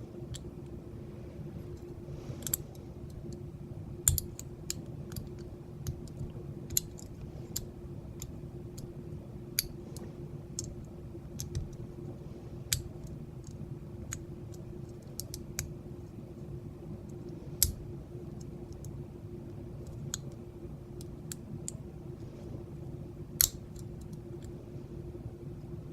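Lock pick and tension wrench working the pin stack of a large vintage Corbin padlock with an Abus keyway: scattered, irregular small metallic clicks, a few of them sharper and louder, over a steady low hum.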